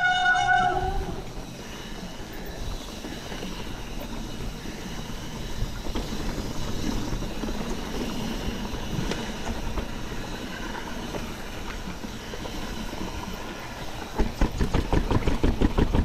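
Mountain bike rolling along a dirt trail: a steady rush of tyre and wind noise, turning into fast, dense rattling and knocking over rough technical ground in the last two seconds. A brief high tone sounds at the very start.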